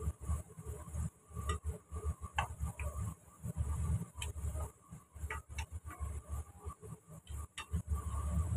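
A spatula stirring sliced shallots in a nonstick wok, clicking and scraping against the pan at irregular intervals over a low, uneven rumble.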